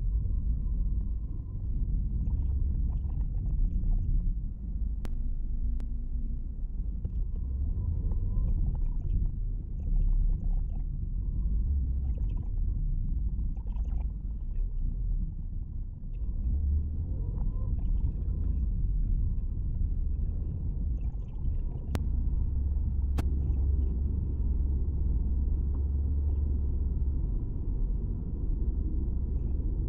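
Low, steady rumble of road and engine noise heard inside a Buick HRV's cabin while it drives, with a few faint clicks.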